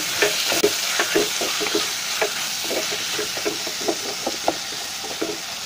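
Chicken pieces sizzling in hot coconut oil in a clay pot while a spatula stirs them, with repeated scraping strokes against the pot, about three a second.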